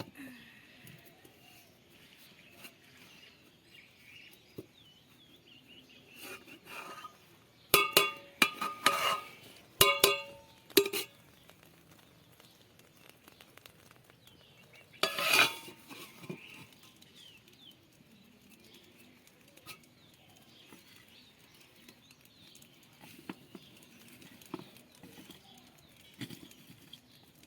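Metal pots, pans and utensils clanking and ringing in bursts: a cluster of knocks about a third of the way in and one more near the middle. Faint bird chirping in between.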